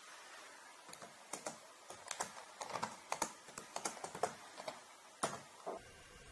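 Typing on a laptop keyboard: a run of irregular key clicks, ending with one louder keystroke about five seconds in.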